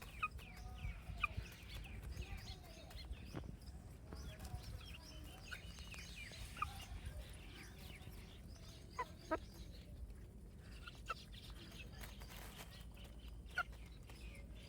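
Baby chicks peeping: scattered short, high chirps, several louder ones standing out, over a steady low background rumble.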